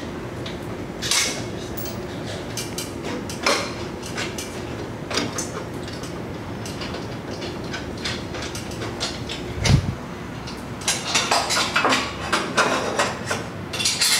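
Metal clinking and knocking as stainless exhaust parts and hand tools are handled and fitted: scattered light clinks, one heavier knock about ten seconds in, and a run of quick clattering near the end.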